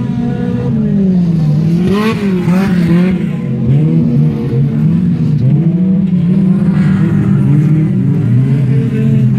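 Autocross cars racing, their engines revving hard, the pitch climbing and dropping again and again.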